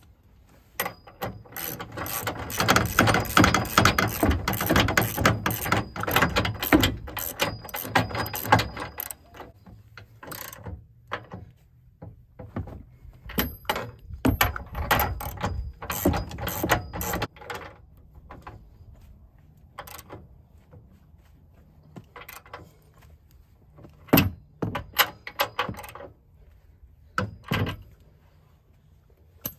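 Hand ratchet wrench clicking in fast runs while tightening the bolts of a truck's front upper control arm. A long run comes first, shorter runs follow, and a few separate clicks and knocks come near the end.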